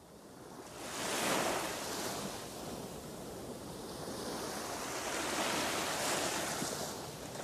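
Ocean waves breaking and washing in, fading in from silence. The surf swells about a second in and again around five to six seconds.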